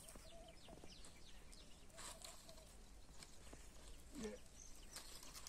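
Near silence: faint outdoor ambience with scattered faint high chirps and one faint low call about four seconds in.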